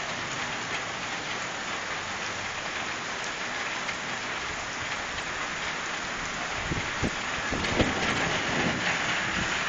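Steady rain falling, an even hiss with no break. A few brief low thumps come about seven to eight seconds in.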